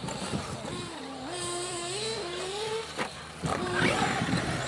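Nitro RC buggy engine whining at high revs, its pitch dipping and climbing as the throttle is worked through turns. A short sharp knock about three seconds in.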